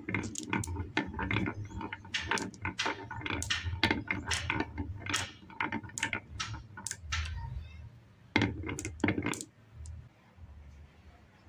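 Marbles rolling down a wavy groove carved in a wooden beam, clicking against the wood and against each other as they pile up in the bends. The clicks come thick and fast at first, thin out, and stop about nine and a half seconds in.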